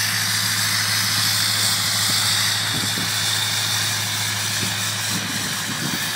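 Ford 6.0 L Power Stroke V8 turbodiesel idling steadily shortly after a cold start at about −10 °C, still at normal idle before its high-idle warm-up comes on.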